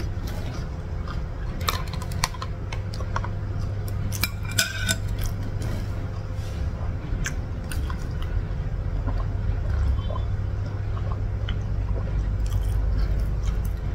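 Close-miked eating and drinking: sips and swallows from a glass mug of lemon water, with scattered light clicks of glass and dishes, one clink briefly ringing about four seconds in, over a steady low hum.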